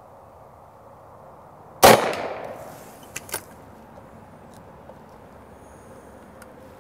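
A single sharp shot from an AirForce Texan .257 precharged pneumatic air rifle, fed from an external air bottle, about two seconds in, its report echoing away over about a second. A couple of faint clicks follow about a second later.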